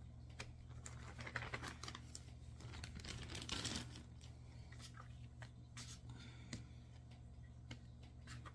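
Faint crinkling of a plastic bag as flour is shaken out of it, then light taps and rustles of dough pieces being handled on a flour-dusted silicone pastry mat, over a steady low hum.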